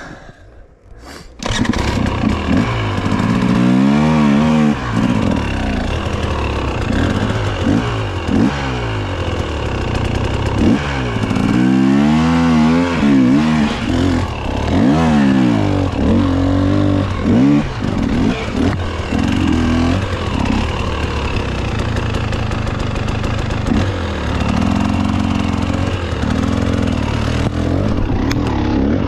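Dirt bike engine coming in suddenly about a second in, then revving up and down over and over as the bike is ridden through rough off-road terrain.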